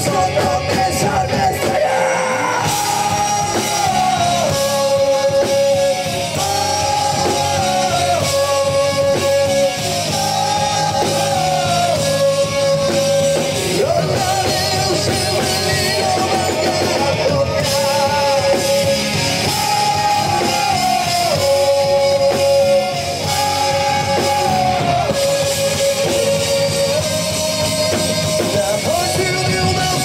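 Rock band playing live, loud: distorted electric guitar, bass guitar and drum kit, with a male singer and a melody that steps between long held notes.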